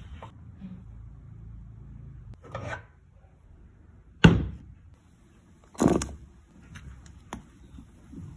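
A spatula rubbing through a thick creamy mixture in a saucepan, then two sharp knocks about two seconds apart as the pan is handled on the table, the first one the loudest, followed by a few small clicks.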